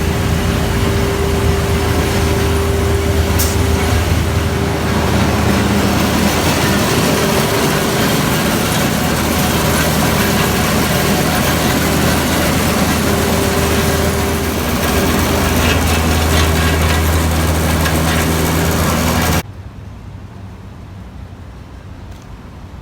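Concrete floor milling machine running steadily and loudly: a constant low hum and a steady tone under a dense grinding hiss. About nineteen seconds in the sound drops suddenly to a much quieter steady noise.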